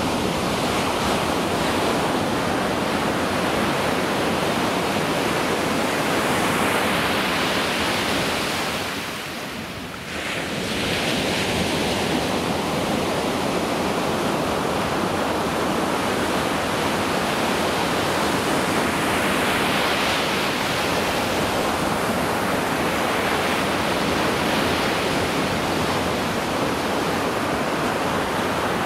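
Ocean surf breaking and washing up on a sandy beach, a steady rush of waves that eases briefly about ten seconds in before the next wave breaks.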